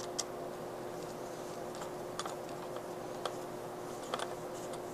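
Screwdriver tightening the silver terminal screw of a duplex outlet down onto a hooked white neutral wire: a few faint, scattered small metal clicks.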